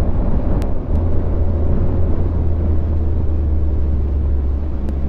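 Steady rush of wind over a helmet-mounted camera, with an adventure motorcycle running underneath at road speed as a low, unbroken rumble.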